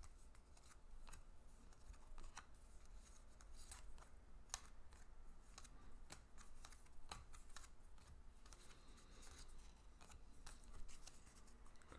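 Faint, irregular clicks and slides of paper baseball cards being flipped through by hand.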